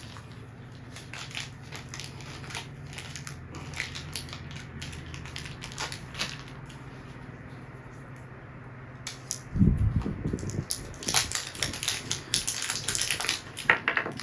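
Packaging being handled by hand: scattered faint clicks and rustles, then from about nine and a half seconds in, loud, dense crinkling and crunching with a few low thumps, like plastic wrapping being crumpled.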